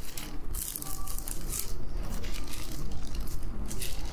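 Paper rustling and crinkling in short bursts as Bible pages are leafed through to find a passage.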